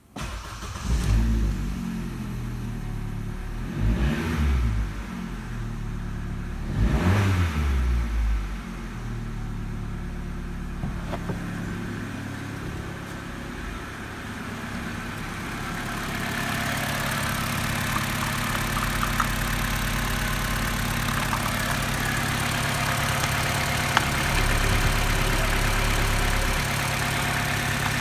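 Opel Astra H's 1.4-litre Z14XEP four-cylinder petrol engine starting, then revved three times, about one, four and seven seconds in, and settling to a steady idle. From about sixteen seconds in it is heard up close at the open engine bay, louder and brighter.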